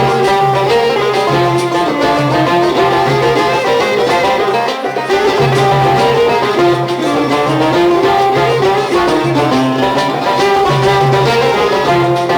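Instrumental interlude of Algerian chaabi music between sung verses, with plucked strings and violin playing a winding melody over a steady accompaniment.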